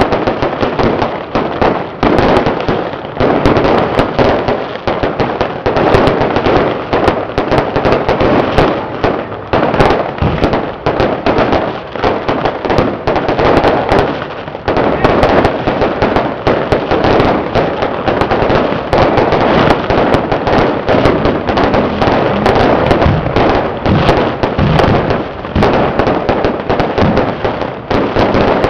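Dense, unbroken barrage of firecrackers: a rapid crackle of overlapping sharp bangs.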